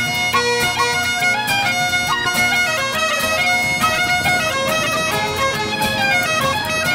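Background instrumental traditional music with a fast-moving melody.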